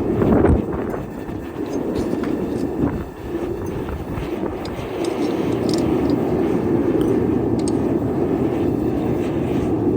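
Melting furnace burner running with a steady, loud rushing noise, swelling briefly just after the start. A few light metallic clinks come over it in the second half.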